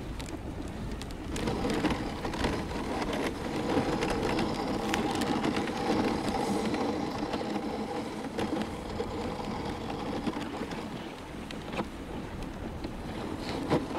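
Dog sled running over a packed snow trail: a steady rushing scrape of the runners on snow, with scattered small knocks and rattles from the sled.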